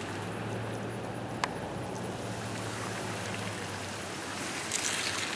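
Truck engine running steadily at low revs, its hum fading out a little over halfway through. A single sharp click comes about a second and a half in, and a brief hiss near the end.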